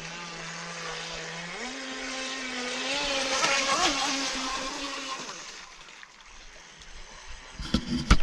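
Radio-controlled model speedboat running on a lake: a steady motor tone that steps up in pitch about one and a half seconds in as the boat speeds up, with its hull spray hissing loudest as it passes close. The sound fades as the boat heads away, and a few sharp knocks come near the end.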